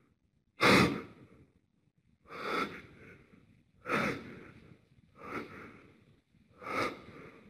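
A man breathing heavily close to the microphone: five loud, noisy breaths about a second and a half apart. The first, about half a second in, is the loudest.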